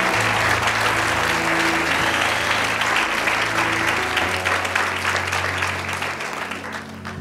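Congregation clapping, fading out toward the end, over sustained instrumental music with steady low held notes.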